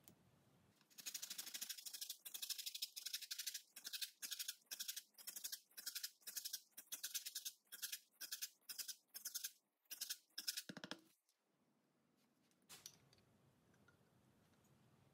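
Orange peel being grated on a fine handheld rasp grater: quick, even scratchy strokes at about three a second for some ten seconds, which then stop.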